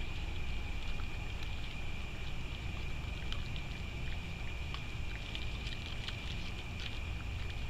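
Raccoon eating close to the microphone: scattered small clicks and crunches as it chews and picks at food in a dish, over a steady low rumble and a continuous high whine.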